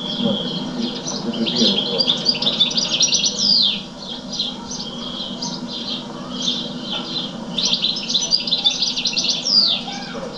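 Caged songbird singing: fast warbling trills and chirps, with a quick falling sweep about three and a half seconds in and again near the end.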